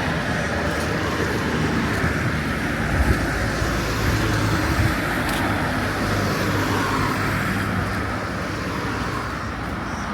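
Road traffic: the steady rumble of cars' engines and tyres going by close at hand, easing slightly near the end.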